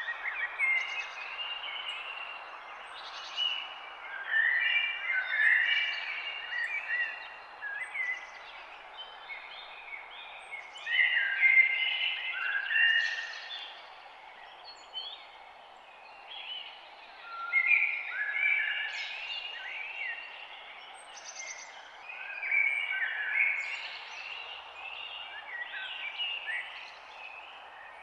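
Several songbirds chirping and singing in overlapping phrases over a steady background hiss of forest ambience.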